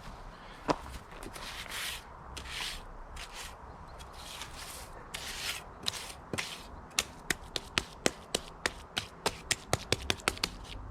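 Hand tool scraping in repeated strokes, then a run of sharp taps at about three a second, coming closer together toward the end.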